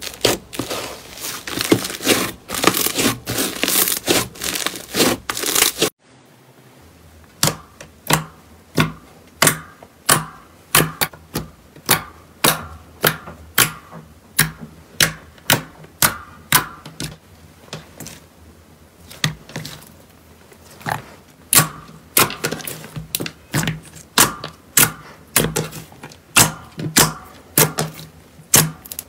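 Hands kneading thick, fluffy slime, giving a dense crackling, tearing sound. After an abrupt cut about six seconds in, fingers press and poke clear slime full of air bubbles, making a steady run of sharp clicking pops, two or three a second.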